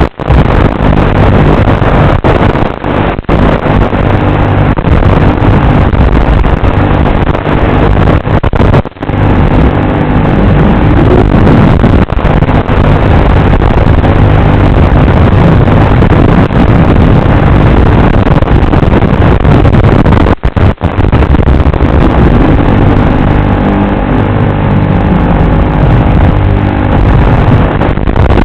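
FPV drone's motors and propellers buzzing loudly and steadily, with the pitch shifting and three brief dips.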